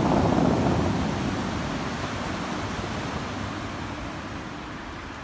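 Show fountain's water jets crashing back into the lake as a rushing noise that fades away steadily as the jets die down into mist.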